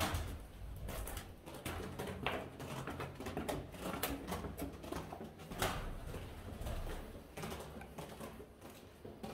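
Feral pigeons cooing in a small enclosed room, with irregular footsteps and scuffs over a dirt- and droppings-covered floor.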